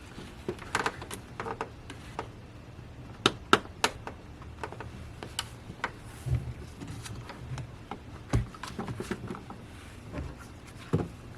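Scattered clicks and light knocks of hands working the electric cooling fan's plastic wiring connector loose in the engine bay, with two sharp clicks a little over three seconds in and a dull thump about eight seconds in.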